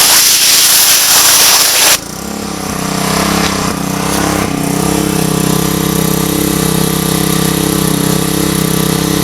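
High-pressure water spraying from a gasoline pressure washer's nozzle, a loud hiss that stops suddenly about two seconds in when the spray is shut off, leaving the pressure washer's gas engine running steadily.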